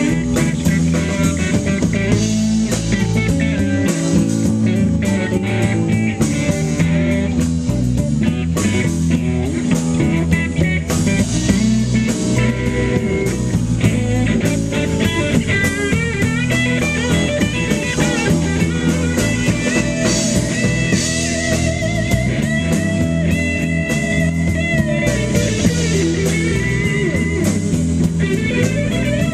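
Live blues band playing an instrumental stretch, led by electric guitar over drums; about halfway through, the guitar plays wavering, bent lead notes.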